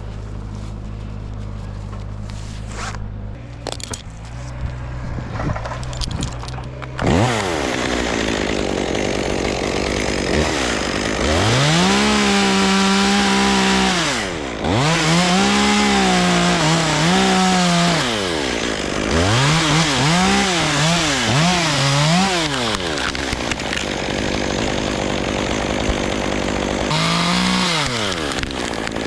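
Chainsaw idling for several seconds, then revved up and run hard in several bursts, likely cutting wood, its pitch dipping and recovering again and again.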